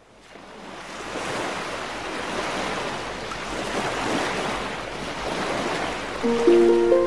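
A steady rushing noise, like wind or surf, fades in from silence over about a second: an intro whoosh sound effect. About six seconds in, sustained musical notes begin over it.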